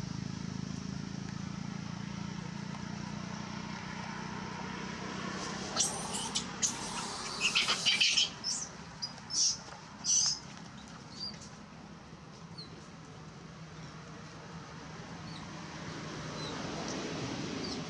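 A cluster of short, high-pitched animal calls, squeaky chirps and squeals coming in quick bursts through the middle, over a steady low engine hum.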